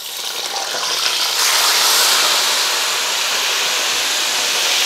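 Raw bone-in chicken pieces going into hot oil in a karahi and frying over high flame. The sizzle builds over the first second and a half as the pieces go in, then holds loud and steady.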